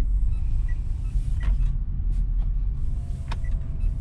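Low, steady cabin rumble of the 2022 Mitsubishi Xpander CVT rolling slowly, with the turn-signal relay ticking about every three-quarters of a second.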